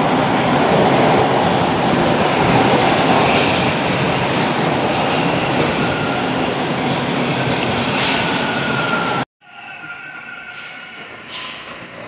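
Subway trains rumbling through an underground station on steel wheels and rails, with faint wheel squeals. The loud rumble cuts off suddenly about nine seconds in, leaving much quieter station noise with a few thin tones.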